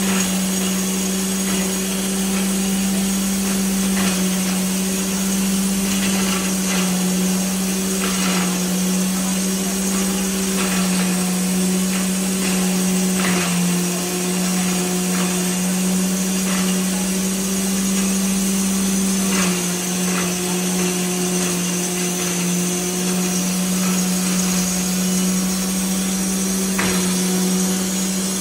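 Belt-driven corn grinder running under its electric motor, a loud steady hum with a high hiss over it. Its pitch steps down slightly a couple of times, and a few sharp knocks come now and then.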